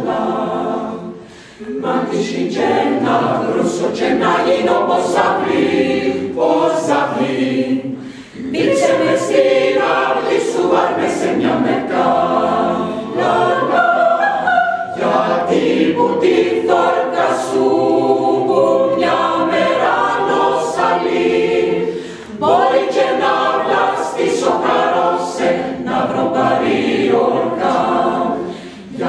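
Mixed chamber choir of men and women singing a song in Greek in several parts, in phrases broken by brief breaks about 1.5, 8 and 22 seconds in and just before the end.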